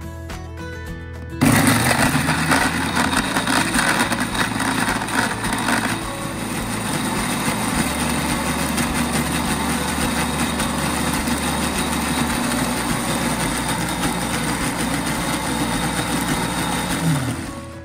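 Electric blender motor spins up about a second and a half in and grinds raw spice-paste ingredients (shallots, garlic, red chilies, candlenuts) into a wet paste. It is coarse and choppy for the first few seconds, then evens out into a smooth run as the ingredients break down, and spins down near the end.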